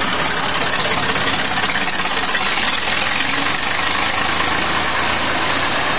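Diesel tractor engine running steadily on an 80% jatropha biodiesel blend, a continuous loud engine note with no speech over it.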